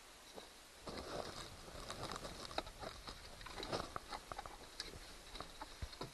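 Plastic parts of a car's LCD clock housing being handled and pried at: a run of small clicks, crackles and scrapes starting about a second in.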